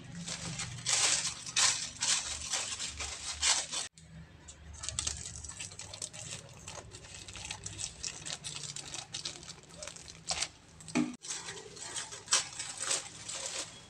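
A plastic courier mailer bag crinkling and rustling as it is cut open with scissors and handled, in a run of short, sharp crackles that are loudest in the first few seconds.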